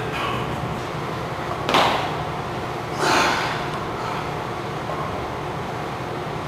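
A lifter's forceful breaths while straining through reps of lying barbell triceps extensions: two short, sharp, breathy bursts a little over a second apart, over a steady room hum.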